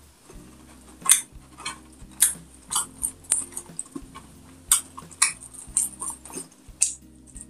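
Close-miked mukbang eating sounds of pork binagoongan and rice eaten by hand: sharp wet smacks and clicks of chewing, about two a second.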